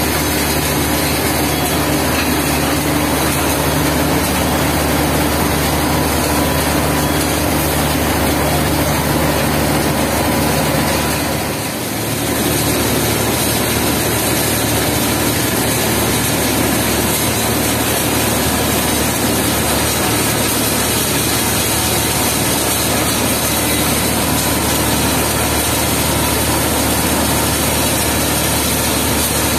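Steady running of asphalt mixing plant machinery and diesel engines. The level dips briefly about twelve seconds in, and the low engine pitch changes after it.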